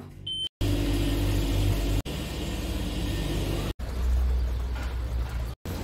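Steady low rumble of street traffic, cut into short pieces by abrupt breaks, with a short high beep just before the first break.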